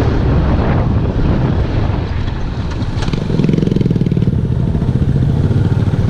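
Motorcycle engine running while riding, with wind rush on the microphone; its rapid beat grows stronger about three seconds in.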